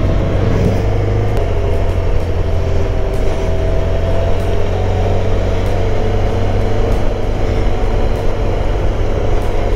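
Motorcycle engine running steadily at cruising speed, with a heavy low rumble of wind and road noise.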